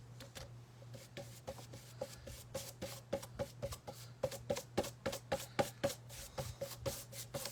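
Paintbrush worked back and forth on a flat artboard, blending acrylic paint: a quick, uneven series of light scrubbing strokes, several a second, over a faint steady hum.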